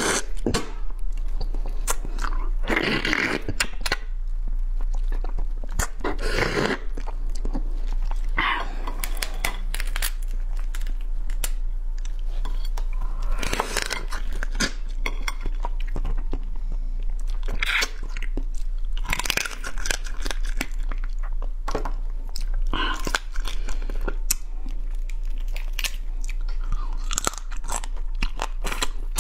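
Close-up chewing and crunching as a person bites into and eats a crab, its shell and legs cracking between the teeth in irregular bursts, over a low steady mains hum.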